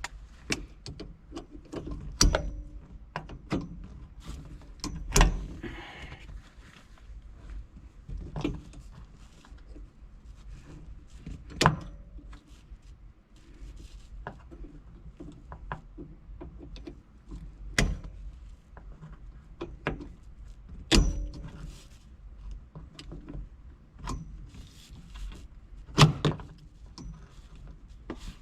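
Metal tools and parts clinking and knocking against the shift rod coupler and shift rod inside a 1961 VW Beetle's central tunnel while the coupler is worked loose. The sharp metallic clicks and taps come every second or two, some ringing briefly, with the softer rubbing of handling in between.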